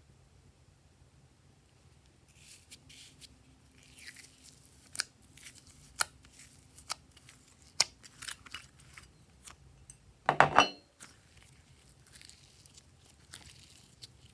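Glossy slime being worked by hand, giving sticky crackles, clicks and small air-bubble pops at irregular intervals. A louder cluster of pops comes about ten seconds in.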